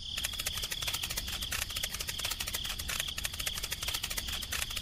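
Crickets chirping: a steady high trill with fast ticking underneath.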